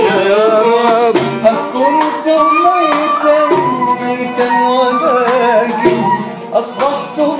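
Small live ensemble playing Turkish mystic music: a wavering, gliding melody line over regular frame drum strokes.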